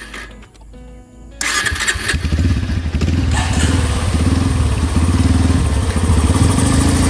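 A motorcycle engine starts suddenly a little over a second in and then keeps running loudly with a fast, even firing beat.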